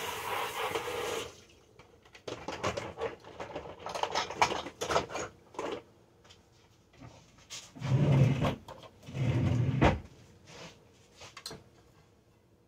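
Kitchen clatter: scattered clicks and knocks of dishes, utensils and cupboards being handled, with two louder, deeper bursts about a second apart in the second half.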